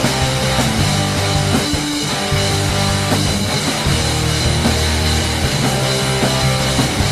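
Rock band playing: distorted electric guitars, bass and drum kit, with no vocals.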